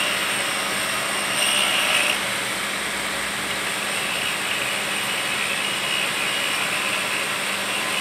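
Steady mechanical running noise of track work on a steel rail: a spark-throwing tool in use on the rail, with a constant low hum underneath.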